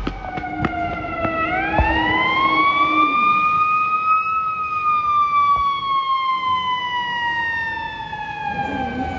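Fire truck siren rising steeply in pitch for about three seconds, then slowly falling, with a steady lower horn tone underneath for the first few seconds.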